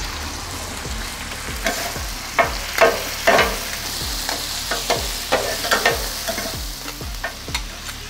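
Sliced steak and onions sizzling on a flat-top griddle, with metal spatulas scraping and clinking against the plate as the mix is turned, in a string of sharp strokes over a steady frying hiss.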